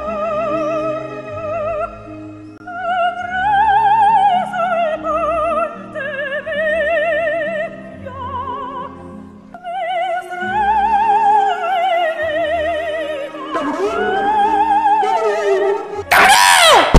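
Operatic soprano singing long phrases with a wide vibrato over an orchestral accompaniment. Near the end a sudden, much louder burst cuts in.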